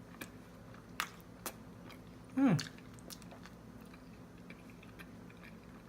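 A person biting into and chewing a soft chicken Alfredo roll-up of lasagna noodle, chicken and cream sauce, with a few small wet mouth clicks. About two and a half seconds in there is a brief hum that falls in pitch.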